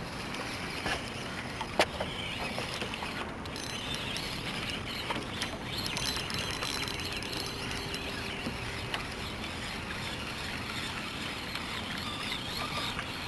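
Spinning fishing reel being cranked, light clicking of its mechanism over a steady hiss of wind and water around a small boat, with one sharp knock about two seconds in.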